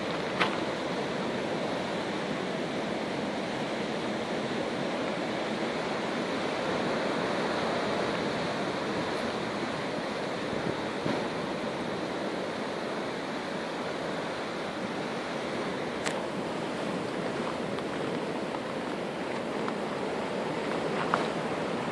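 Steady rush of sea waves and surf, an even hiss that does not change, with two brief clicks in the second half.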